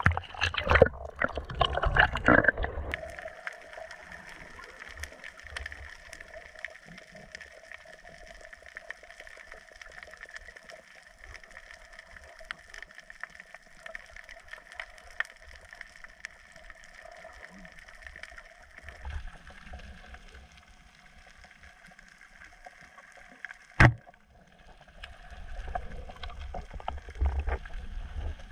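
Splashing as a diver goes into the sea, then muffled, steady underwater noise from a camera held below the surface. A single sharp snap about two-thirds of the way through, and low rumbling swells near the end.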